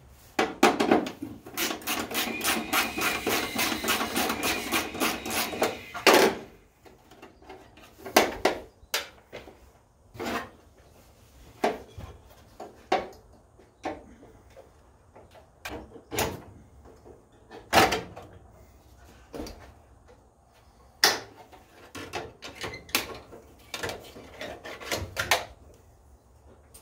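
Scuff pad rubbing on the painted sheet metal of a car's engine bay: a run of quick scrubbing strokes for about six seconds, then scattered short scrapes and knocks.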